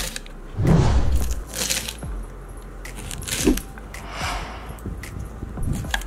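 Knife cutting green beans on a wooden chopping board, with the clatter and rustle of the cut beans being pushed together by hand: irregular knocks and clicks, the heaviest about a second in and a sharp knock past the middle.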